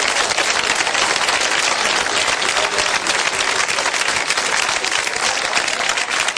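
Audience applauding: dense clapping from a large crowd.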